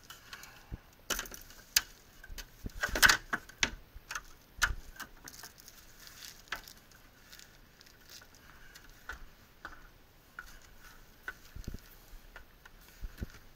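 Irregular knocks, clicks and rustling of someone climbing a stepladder and clambering into an attic. A cluster of sharp knocks comes in the first few seconds, then sparser clicks and rustles.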